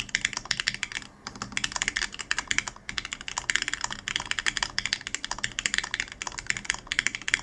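Typing sound test on a Sesame Alice-layout ergonomic keyboard with lubed Gateron KS-3 Yellow linear switches on 50g springs and HK Gaming Dreamer keycaps: rapid, even keystrokes, with brief pauses about a second in and near three seconds.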